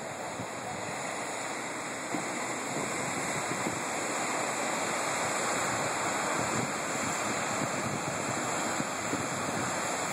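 Ocean surf breaking over rocks and a cobble shore: a steady, even wash of waves, a little louder from about two seconds in.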